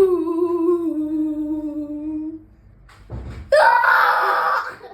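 A person making silly vocal noises: a long held hum-like tone that slowly sinks in pitch and fades out, then, after a short breath, a loud, harsh, rasping squawk lasting about a second near the end.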